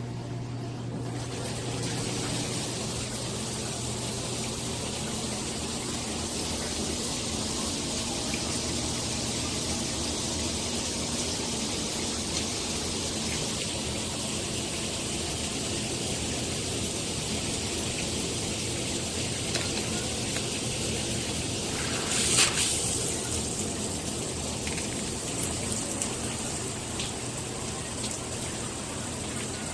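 Shower head spraying water steadily, with a brief louder burst of spray noise about two-thirds of the way through.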